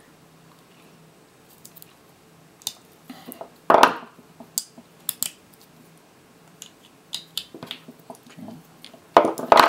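LG 18650 lithium-ion cells and a small metal pick being handled while the wrap is worked off a cell: scattered light clicks, taps and scrapes, with a louder burst of handling noise about four seconds in and another near the end.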